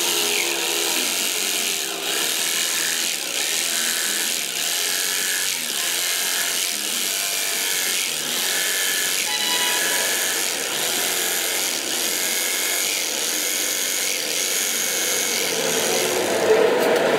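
Electric jigsaw running and cutting a curve through a hardwood board: the steady rasping buzz of the reciprocating blade in the wood, turning lower and a little louder near the end.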